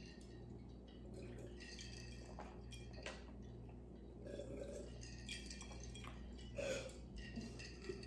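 Quiet sipping and swallowing from glass jars, with a few faint glass clinks and knocks now and then.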